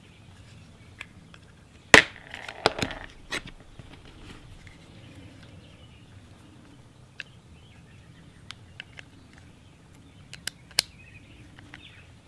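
Small metal airgun parts clicking and tapping as they are handled and fitted by hand: a cluster of sharp clicks about two seconds in, then a few scattered single clicks.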